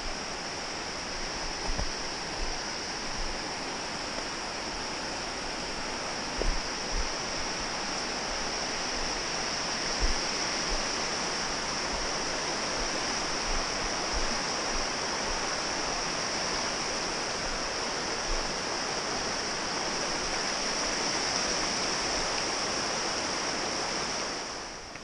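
Creek water rushing over rocks, a steady rush that grows a little louder through the second half and drops away just at the end. A few soft low thumps come in the first half.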